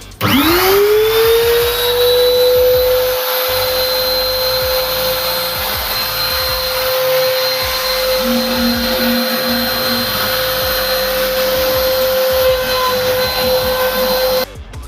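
CNC router spindle spinning up with a rising whine that settles into a steady high-pitched whine as it runs at speed. The sound cuts off abruptly near the end.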